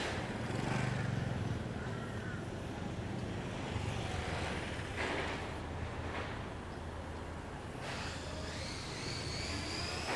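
City street ambience: a motor vehicle's engine running steadily, a little louder in the first couple of seconds.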